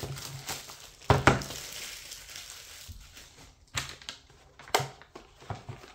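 Plastic packaging of a hex bit set crinkling and being torn open, with a loud rustle about a second in and a few sharp clicks later as the kit is handled.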